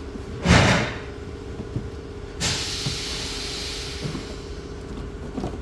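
Plastic windshield cowl panel being worked loose from its clips: a thump about half a second in, then a sudden hissing scrape of plastic that fades over about two seconds.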